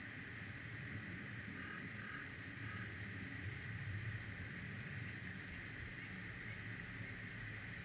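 Steady outdoor background noise: a low hum under a constant hiss, with a few faint short high notes about two seconds in.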